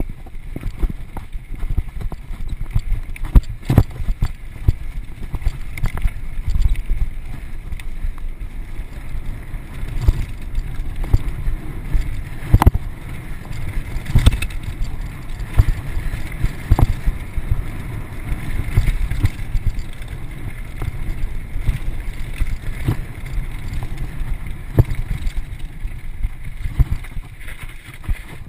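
Carrera mountain bike rattling down a rough track: a steady low rumble of tyres over dirt and stones, with frequent sharp knocks and clatters from the bike and its suspension fork over bumps.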